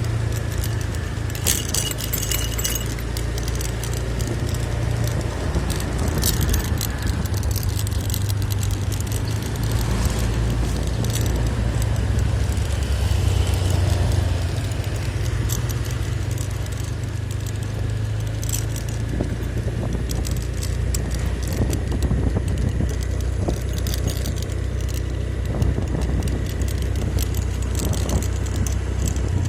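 Vehicle travelling along a rough village road: a steady low rumble with frequent light rattling and clinking.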